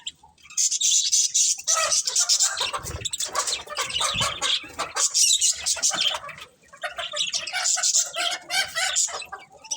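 Budgerigars chirping and chattering: a dense run of high twittering calls, starting about half a second in, with a brief lull a little past six seconds.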